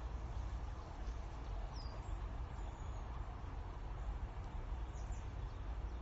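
Steady outdoor background rumble, with a few faint, short high bird chirps now and then.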